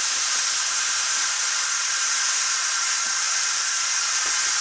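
Sofrito of peppers, onion and garlic sizzling steadily in hot oil in a pot, with tomato sauce poured over it.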